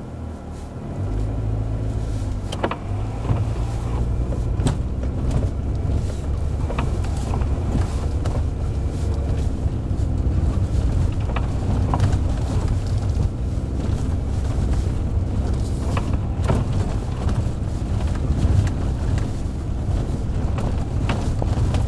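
Car driving up a snow-covered dirt track, heard from inside the cabin: a steady low engine and road drone that builds about a second in as the car pulls away, with frequent small knocks and rattles throughout.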